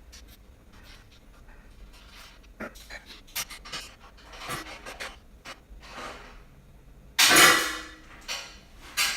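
Heavy breathing close to the microphone, the loudest breath coming suddenly about seven seconds in, over faint clicks of small parts being handled.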